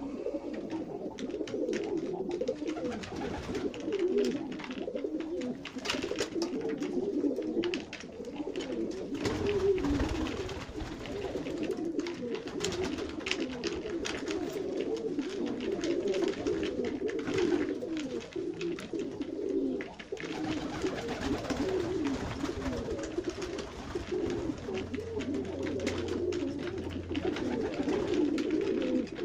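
A loft full of Serbian highflyer pigeons cooing continuously, many birds overlapping, with scattered sharp taps and clicks of beaks pecking grain from a wooden trough.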